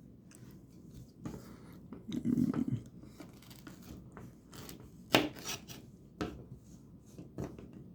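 Pocket knife blade cutting into a chocolate bar that has hardened in the fridge: faint scraping and cutting, with a dull low sound about two seconds in and a few sharp clicks, the loudest a little past the middle.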